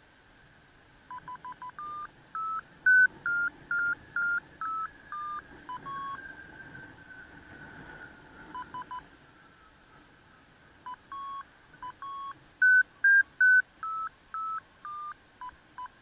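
FrSky Taranis transmitter's audio variometer beeping: two runs of short electronic beeps whose pitch steps up and then back down as the glider's climb rate changes. The higher beeps signal the sailplane climbing in lift.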